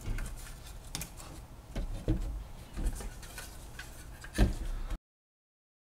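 Light clicks and taps of pellet-stove control boards being handled and turned over, with a louder knock about four and a half seconds in; the sound then cuts off suddenly to silence.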